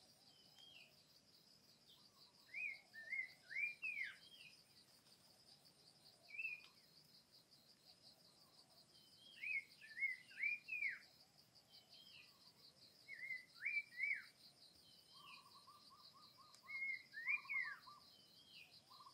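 A bird calling short phrases of three or four quick sweeping notes, repeated every few seconds, over a steady high-pitched insect drone. Near the end a short rattling trill comes in a few times.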